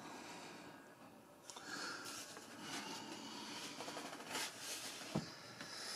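Faint rubbing and handling sounds from the foam fuselage of an RC jet model being turned in the hands, with a sharp tap about five seconds in.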